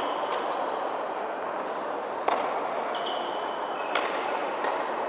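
Tennis balls struck by rackets and bouncing on a hard court during a rally, a sharp pop every second or two, the loudest a little over two seconds in, echoing in a large indoor tennis hall over a steady background hum.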